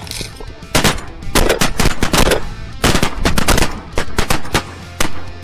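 Rapid volley of semi-automatic shotgun fire from several hunters at once: about twenty sharp shots, some overlapping, packed into about four seconds. The last shot comes about five seconds in.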